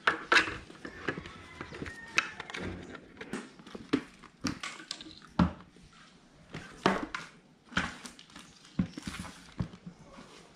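Scattered sharp plastic clicks and knocks from handling a full-face motorcycle helmet, with its visor and side pivot plate being worked, then helmets being set down on a small table.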